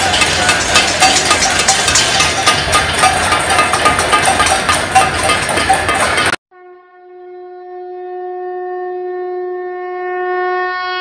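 For about six seconds, dense clanging of bells and banged metal. Then it cuts off abruptly, and a conch shell (shankh) is blown in one long, steady blast that slowly grows louder.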